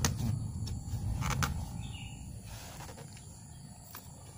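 Wet cotton T-shirt rustling and rubbing as it is pulled down over a bird cage, with a few sharp clicks of the cage being handled and a low rumble of handling noise.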